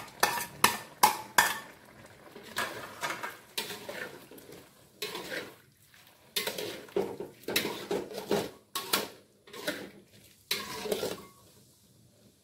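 Metal spatula scraping and knocking against an aluminium wok as vegetables are stirred into a thick simmering braise: irregular strokes, bunched in the first second or so and again from about five to eleven seconds, then stopping.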